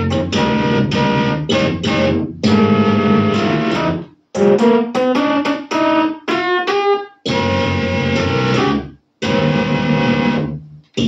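Yamaha DX7 FM synthesizer played by hand: chords and a quick run of notes in the middle, with short breaks between phrases.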